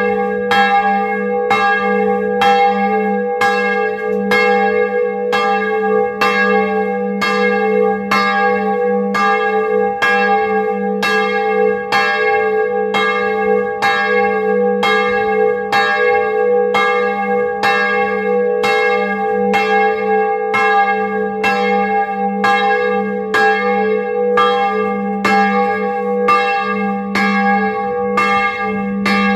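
Bronze church bell cast in 1658, tuned to G♯3, swinging and ringing, its clapper striking about once a second over a steady low hum.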